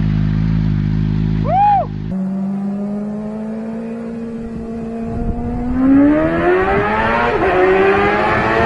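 An engine idling, with one quick rev blip about a second and a half in. Then, after a sudden switch, a second engine idles steadily and revs up from about five seconds in, rising in pitch and getting louder.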